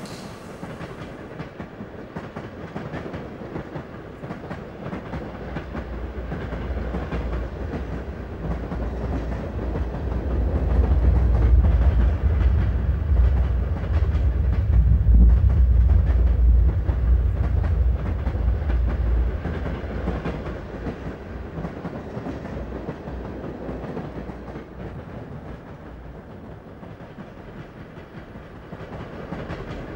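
A deep low rumble that swells over several seconds to a peak near the middle and then dies away, over a steady low background noise.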